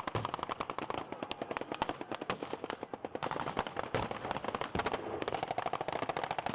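Blank-firing gunfire from a WWII battle reenactment: rapid machine-gun bursts mixed with scattered single rifle shots, many shots a second. A long even burst comes near the end.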